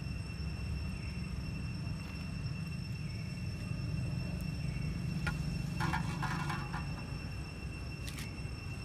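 Outdoor ambience: a steady low rumble with thin, steady high-pitched whines over it, a couple of faint clicks, and a short chirping call about six seconds in.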